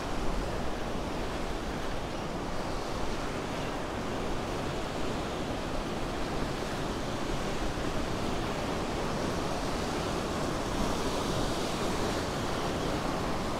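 Steady wash of small surf waves in shallow open water, with wind rumbling on the microphone.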